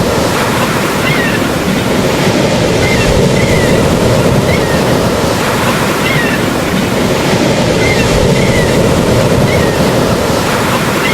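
Steady, loud rushing water noise, like surf, with no swell or break in level. Faint short high chirps recur about once a second over it.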